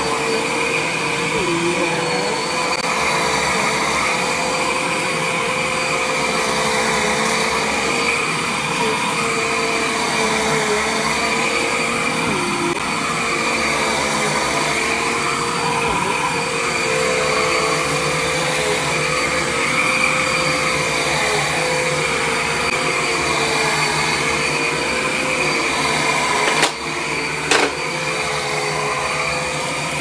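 Upright bagless vacuum cleaner running on carpet: a steady, high motor whine whose pitch dips briefly now and then. Two sharp clicks come about a second apart near the end.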